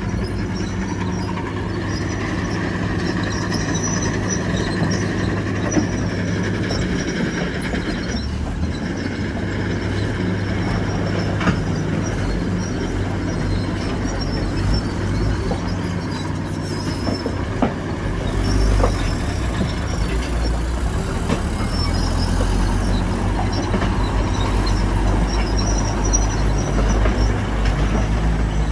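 Komatsu crawler bulldozer working, its diesel engine droning under the squeal and clank of its steel tracks. The engine note deepens and grows louder about 18 seconds in.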